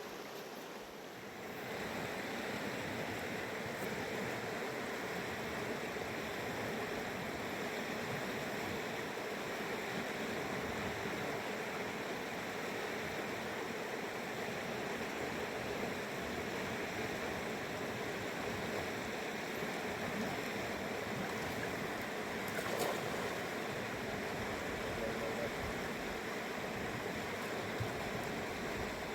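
Rushing water of a fast mountain river, a steady noise that gets louder about a second and a half in.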